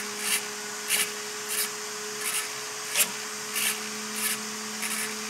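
A small RC steering servo whirring in short bursts, about eight of them roughly two-thirds of a second apart, as it swings the front wheels back and forth through a music-wire linkage. A steady low electrical hum runs underneath.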